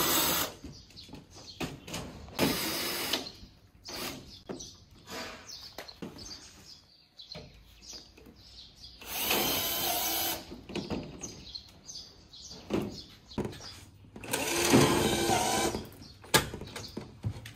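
Bosch cordless drill driving screws through corrugated polycarbonate roofing sheet, whirring in four short bursts of a second or so each, with small clicks and knocks in between.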